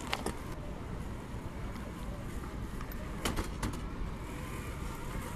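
Traxxas TRX-4 RC crawler working over rocks: a few sharp clicks and knocks, two right at the start and a quick cluster a little past three seconds in, over a steady low rumble.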